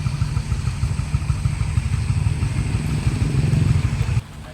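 Loud low rumble of a vehicle on the move, its engine running steadily, cutting off abruptly near the end.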